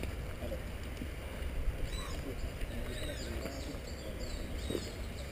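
Repeated short, high chirping bird calls, coming in from about two seconds in, over a steady low rumble of wind on the microphone.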